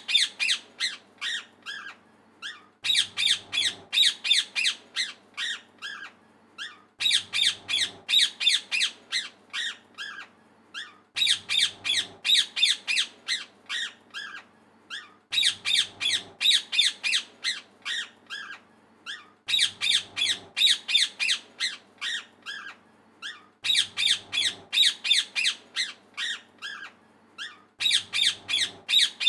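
A parrot chirping and squawking in quick runs of short, high-pitched calls, several a second, the same pattern of calls repeating about every four seconds.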